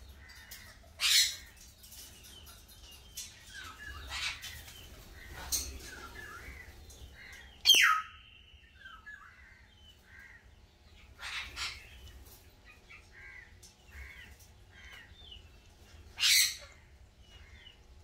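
Pet parrots squawking: about six loud, harsh squawks spread out, one ending in a falling pitch and a held note, with many soft chirps between.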